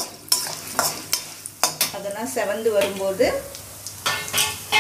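A metal ladle scrapes and stirs in a stainless-steel kadai in repeated short strokes, while a tempering of seeds, dal and curry leaves sizzles in hot oil.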